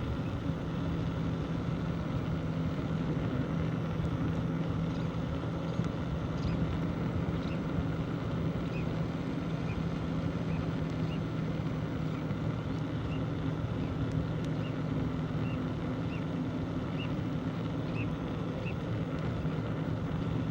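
Steady wind and road noise from riding a bicycle, with a constant low hum underneath. From about six seconds in, a faint high chirp repeats roughly every half second or so.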